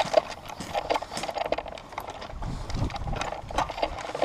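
Footsteps on dry dirt, with gear rattling and scuffing as a person moves on foot: a run of irregular clicks and knocks with a few dull thumps.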